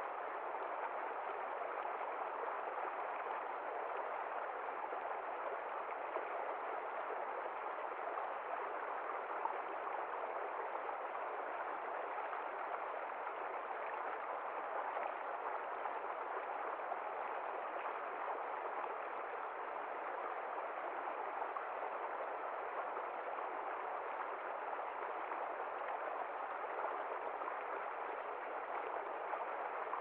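Small forest stream flowing over rocks: a steady, even burble of running water.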